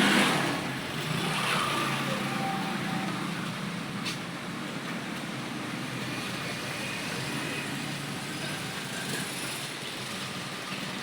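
Computer keyboard keys tapped in quick, continuous typing, at about 55 words a minute, over a steady background noise.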